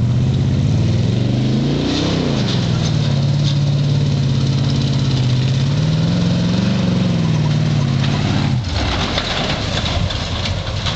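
A 1986 Chevy 4x4 pickup's engine revving as the truck power-slides through grass: the pitch climbs to a peak about two seconds in, drops back to a steady run, and swells again around six seconds. About eight and a half seconds in, the engine note cuts off and a rushing noise is left.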